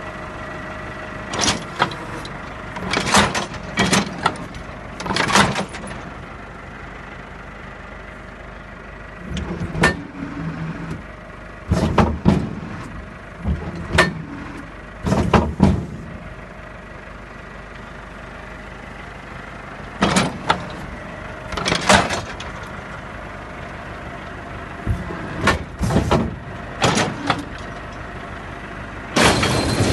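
Machinery running with a steady hum, broken by irregular clusters of clanks and rattles every second or two, with quieter stretches between them.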